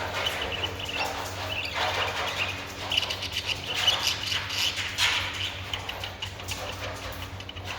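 Birds chirping in short repeated twitters, over a steady low hum.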